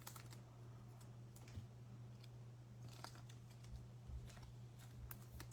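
Faint clicks and light rustles of trading cards and pack wrappers being handled, over a steady low hum.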